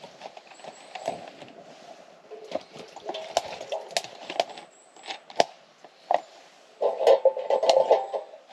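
Small, newly lit campfire of damp sticks with irregular sharp crackles and snaps as the wood is moved about on it, and a louder muffled scuffle of handling about seven seconds in.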